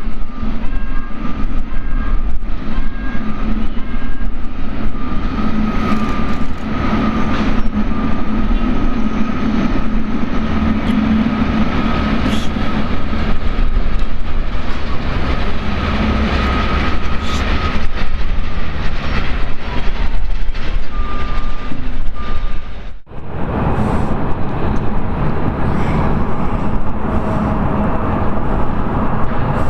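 Jet airliner engines running at taxi power: a steady roar with a thin whine over it. The sound cuts out for an instant about 23 seconds in and comes back with a lower whine.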